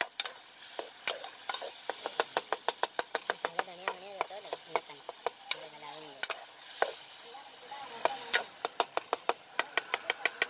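A metal spoon stirs chicken karahi in an aluminium pot, knocking and scraping against the pot several times a second. Under it the masala sizzles steadily as it fries.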